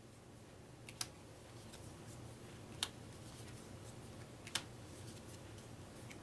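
Playing cards being set down one at a time on a table: three sharp taps spaced a couple of seconds apart over faint room hum.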